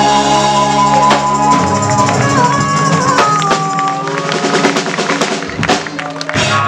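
Live rock band's ending: held electric guitar chords over rolling drums and cymbal crashes, with a final set of hits near the end.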